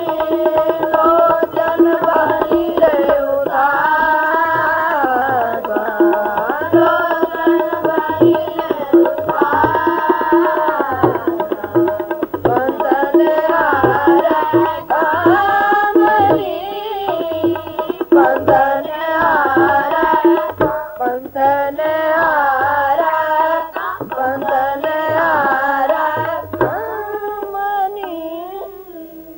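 Sikh kirtan hymn sung by children with harmonium and tabla accompaniment: a melodic line over a steady tabla rhythm. The music fades out near the end.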